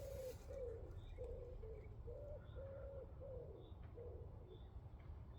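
Faint low cooing from a bird, a steady run of short repeated notes at about two to three a second, with a few faint high chirps from other small birds behind it.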